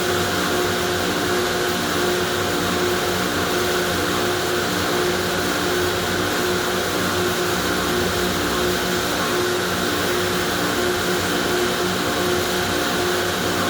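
Car wash machinery running steadily: a constant motor hum with a few steady tones over an even hiss.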